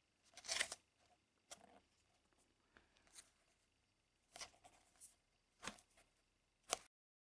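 Paper memo pad being handled, with a series of short, faint rustles of its sheets and fingers brushing the paper. The sound cuts off abruptly near the end.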